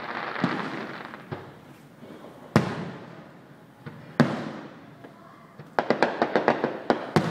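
Aerial firework shells bursting at a distance: a few separate booms, each trailing off, the loudest about four seconds in. Then a rapid string of about eight sharp cracks in the last second and a half.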